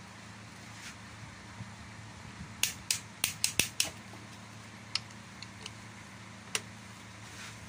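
Ratchet wrench clicking on the connecting-rod cap bolts of a Nissan MR18 engine, tightened toward about 35–40: a quick run of about six sharp metallic clicks a little over two and a half seconds in, then two single clicks later. A steady low hum underneath.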